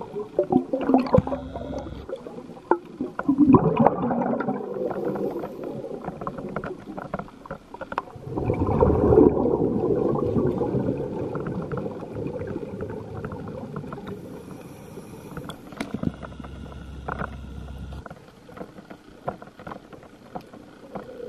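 Underwater gurgling of a scuba diver's exhaled bubbles from the regulator, coming in several long bursts with quieter gaps between, the loudest about nine seconds in.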